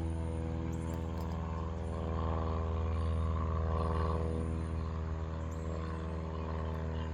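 A cat purring steadily close to the microphone, a continuous low pulsing drone.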